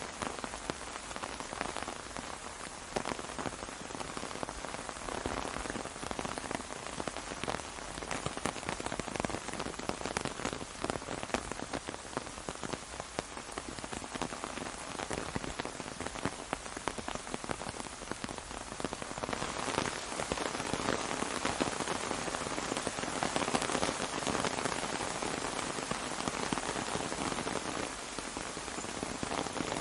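Steady rain falling on an umbrella, a dense patter of individual drops, growing a little heavier about two-thirds of the way through.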